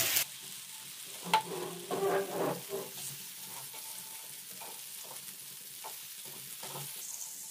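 Fat melting and sizzling faintly in a nonstick frying pan while a wooden spatula stirs and scrapes across it, with a sharp tap against the pan about a second in.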